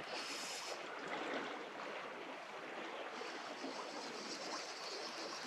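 River water flowing, a steady even rush of a stream running over its bed.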